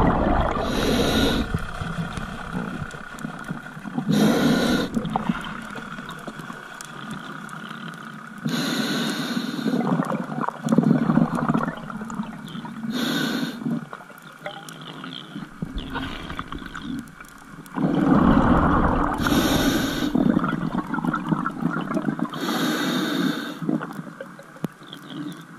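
Scuba diver breathing through a regulator underwater, about every four to five seconds: a short hissing inhale followed by a longer bubbling exhale.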